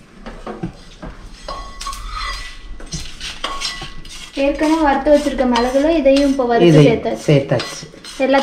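Wooden spatula scraping and knocking against an iron kadai, sweeping dry-roasted cumin and chillies out into a steel bowl, in quick repeated strokes. From about four seconds in the scraping gets louder and a wavering pitched squeal runs under it.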